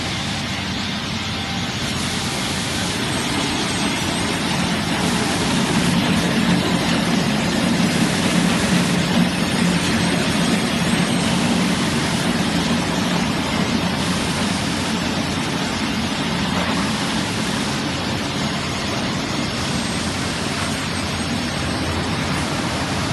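Industrial wooden-door profile sanding machine running, its motors and rotating abrasive brush sanding heads making a steady low hum with a rushing hiss over it, swelling slightly about midway.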